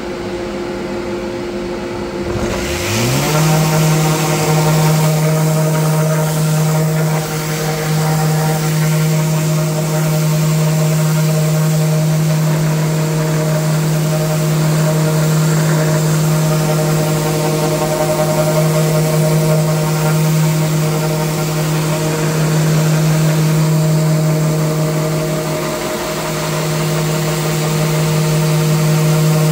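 Electric random orbital sander spinning up about three seconds in, its pitch rising, then running steadily as it sands dark spray paint off a V-carved MDF panel with 80-grit paper. A steady hum is already running underneath before the sander starts.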